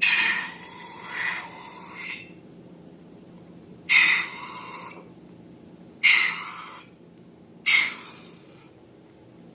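Slime being squeezed and squished by hand: a series of short, sudden wet squelches, about six of them, a second or two apart.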